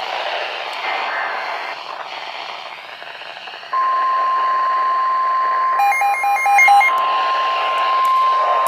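Weather radio hiss, then from about four seconds in the steady single-pitch NOAA Weather Radio warning alarm tone, signalling an emergency alert before the voice message. A quick run of about five beeps sounds over the tone near the middle.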